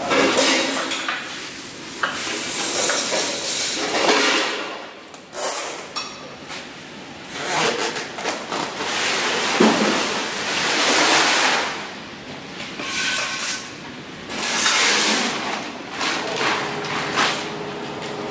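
Irregular metallic knocks and clanks of workshop work, coming and going in loud patches.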